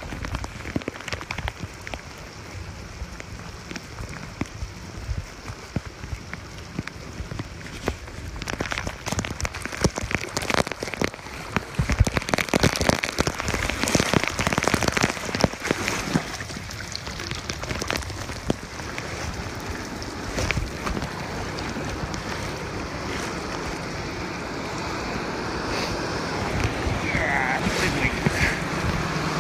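Rain and wind on the microphone over moving floodwater, with frequent crackles through the middle of the stretch; the noise turns steadier and a little louder over the last few seconds.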